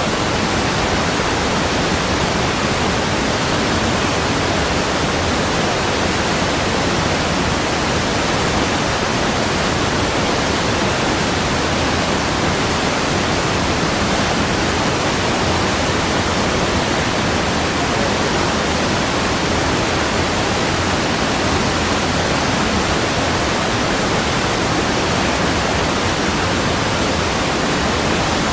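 Steady rushing of water, like a waterfall or fast stream: an even, unbroken hiss and roar that does not change in level.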